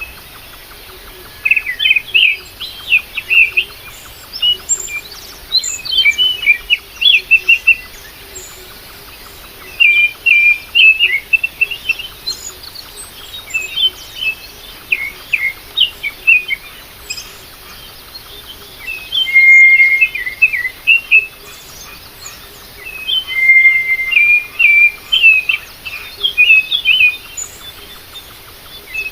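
Birds chirping: repeated clusters of short, high chirps with brief pauses between them.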